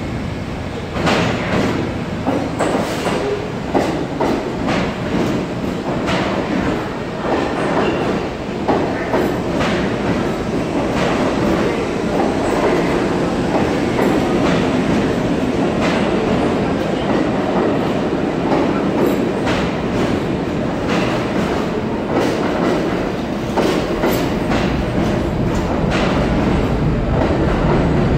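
A Pullman Standard R46 subway train pulls into the station and runs past along the platform: a steady rumble, with the wheels clacking sharply and irregularly over the rail joints.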